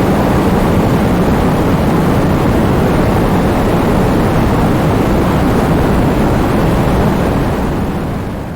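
Heavy rain falling with wind blowing: a loud, steady rushing noise, heaviest in the low end, that fades out near the end.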